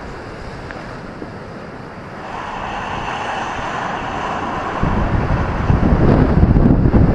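Ocean surf breaking on a beach, with wind buffeting the microphone. A hissing wash swells about two seconds in, and a low wind rumble grows louder from about five seconds in.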